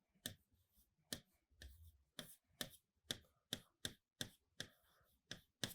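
Faint, irregular clicks of a stylus tapping on a digital writing board as an expression is written, about a dozen in a few seconds.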